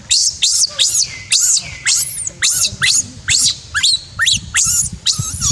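Baby macaque screaming in distress while an adult monkey pins it on its back: a rapid, unbroken run of shrill, high-pitched squeals, about two or three a second.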